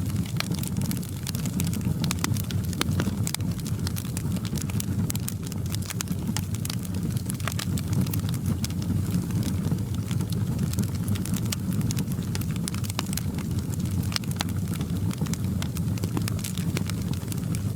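Wood fire crackling in a fireplace: a steady low rumble of flames with frequent, irregular sharp pops and snaps.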